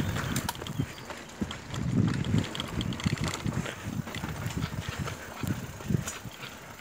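Bicycles rattling and jolting over a rough, potholed dirt path, with irregular low thumps and clicks.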